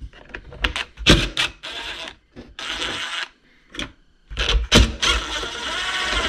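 Hand tools undoing the last bolts and screw that hold a dirt bike's plastic air filter box to its subframe. There are irregular clicks and knocks, and two longer stretches of dense rattling.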